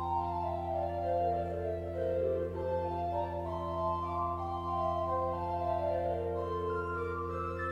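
Church pipe organ playing a slow piece, with low bass notes held steady under a melody that moves up and down in the upper voices.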